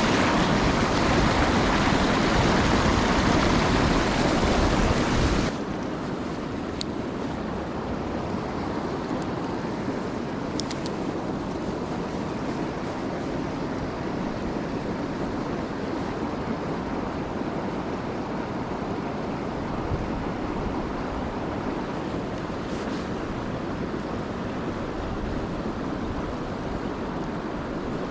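River water rushing over a low dam spillway as a loud, steady rush. It drops abruptly about five and a half seconds in to a quieter, even rush of the current.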